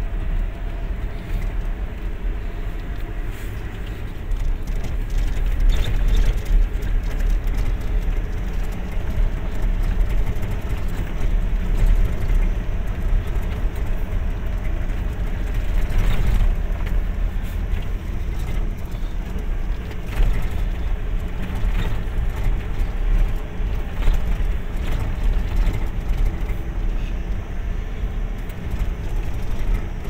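Vehicle running along a rough unpaved dirt road, heard from inside the cab: a steady low engine and tyre rumble with a few separate knocks and rattles over the bumps.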